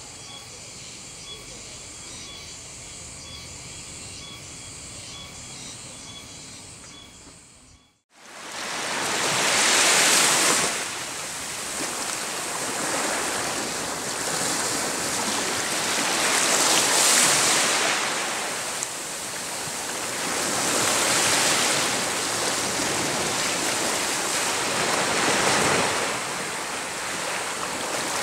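Small waves washing up a sandy beach, the rush swelling and falling back every few seconds. Before them, about eight seconds of a quieter steady background with faint high repeating tones, cut off by a brief moment of silence.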